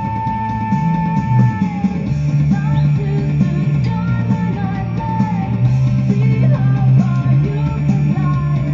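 Rock song with guitar and singing.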